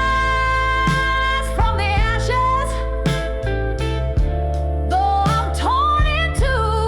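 Slow blues instrumental passage: a lead instrument plays bending, held notes over a steady bass line and a slow drum beat.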